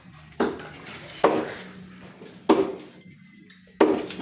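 Four sharp knocks about a second apart, each a blow on something hard followed by a short ring.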